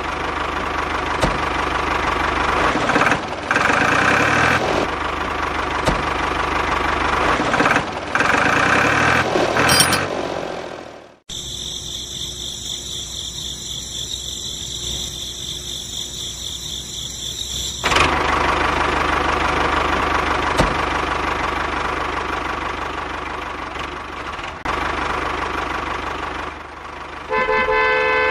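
Tractor engine sound running steadily. About eleven seconds in it cuts off suddenly and is replaced by a higher, whining sound. The engine sound returns at about eighteen seconds, and a horn honks briefly near the end.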